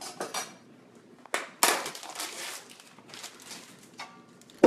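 Plastic film being torn open and peeled off a supermarket tray of ground turkey: a few short crackles and knocks at first, then a longer stretch of crinkling and rustling from about a second and a half in.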